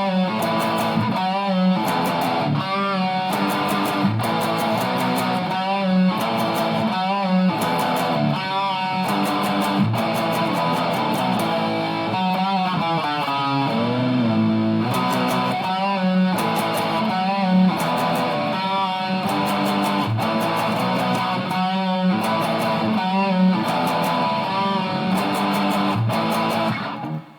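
Electric guitar playing a practised piece with wavering, bent notes and a phrase that repeats about every second and a half, stopping abruptly near the end.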